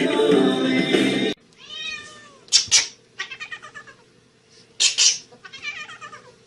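Music that cuts off abruptly about a second in, followed by a cat meowing repeatedly in drawn-out, bending calls, with two short, loud, harsh cries among them.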